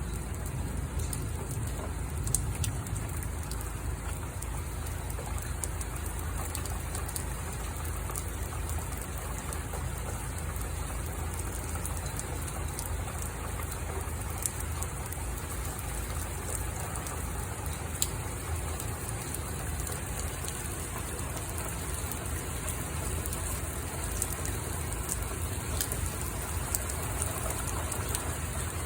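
Steady rain falling, an even hiss with a few sharp ticks from drops striking a surface now and then.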